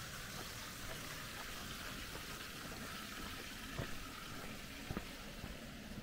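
Water running steadily, an even splashing hiss, with a couple of faint sharp clicks about four and five seconds in.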